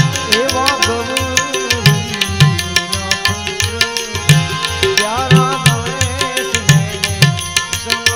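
Live Gujarati folk music: hand drums keep a quick, steady beat under a melody that bends and wavers in pitch, rising up twice.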